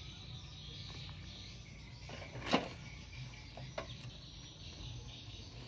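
Faint handling sounds: a few light clicks and taps as a small boost-converter circuit board and its paper packaging are handled, the sharpest about two and a half seconds in.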